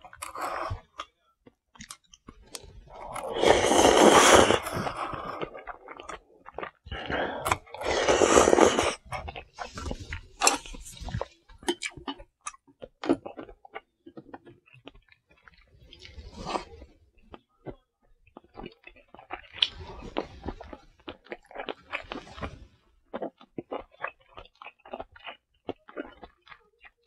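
Close-miked eating: two long, loud slurps of cup ramen noodles a few seconds in, then steady chewing with many small clicks of chopsticks against the bowls and dishes.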